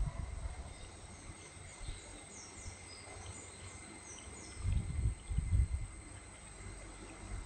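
Outdoor ambience: a run of short, high, falling chirps over a steady insect drone, with a few low thumps about five seconds in.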